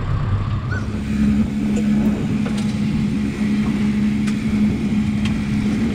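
Charter fishing boat's engine running with a steady low hum, with a few faint clicks.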